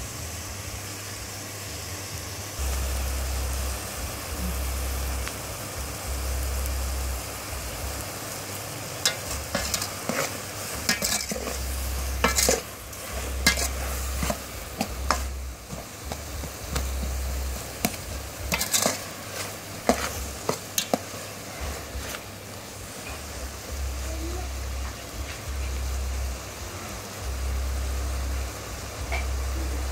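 Beef with lemongrass and chilies sizzling as it fries in a large aluminium pot, stirred with a metal ladle that scrapes and clinks against the pot, the clinks bunched in the middle stretch. A low hum comes and goes underneath.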